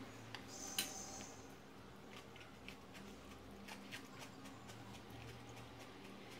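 A metal spoon clinks once on a ceramic plate of rice about a second in. Faint, scattered small clicks and ticks of eating and handling follow.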